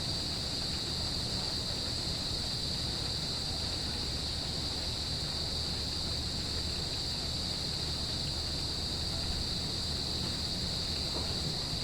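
Crickets trilling in a steady, unbroken high chorus over a constant hiss of rain, with a low steady rumble underneath.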